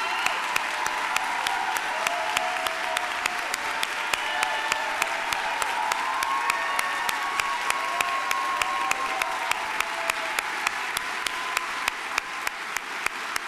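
A large audience applauding, a dense continuous clapping that eases off a little near the end.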